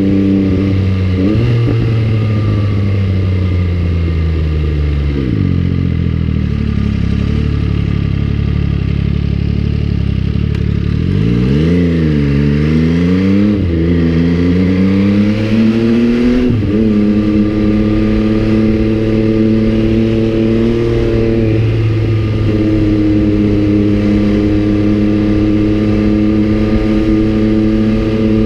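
MV Agusta Brutale 800's three-cylinder engine on the move. Its note falls twice in the first few seconds and rises and falls quickly a few times midway, then holds steadier with a change in pitch about 22 seconds in, as the throttle and gears change.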